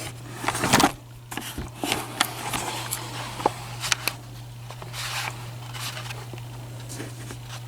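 Scattered small clicks, taps and brief rustles of hands handling small objects at the open bobbin area of a sewing machine, busiest in the first second, over a steady low hum.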